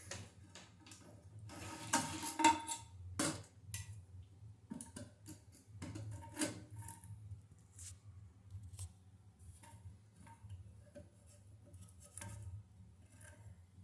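Hard objects clicking and clattering as they are handled, in short irregular knocks, most dense about two to three seconds in and again around six seconds, over a low steady hum.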